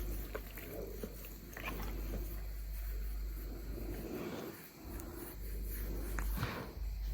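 A dog's small snuffling noises close to the microphone, with a few light clicks over a steady low hum.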